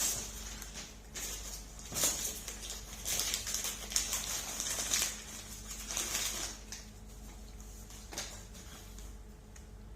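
Gift packaging rustling and crinkling by hand in short irregular bursts, quieter near the end.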